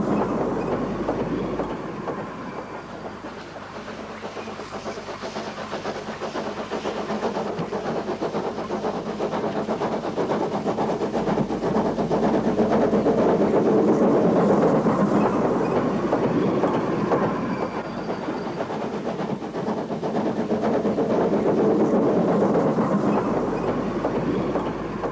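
Ex-North London Railway 0-6-0 tank steam locomotive working hard up a 1-in-14 incline with a couple of wagons, its exhaust beating rapidly. The sound swells to a peak about halfway through, drops back, then swells again before fading near the end.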